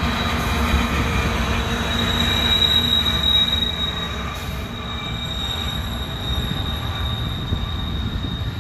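Double-stack intermodal freight train rolling past at close range, its steel wheels giving off a steady high-pitched squeal over the rumble of the cars. The squeal is loudest about three seconds in and fades away near the end.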